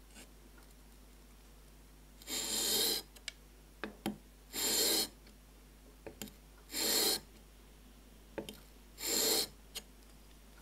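Plane blade in a Veritas honing guide scraped across a soaked 1000-grit waterstone in four short strokes about two seconds apart, with faint clicks between strokes. The strokes hone one corner of the blade to start a cambered edge.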